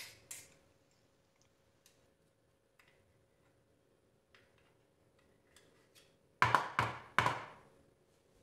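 Faint ticks and scrapes as ice cream is scraped off a Ninja blender's stacked blade assembly. About six and a half seconds in, two short runs of loud knocking and clatter as the blade assembly is pulled up out of the plastic blender pitcher.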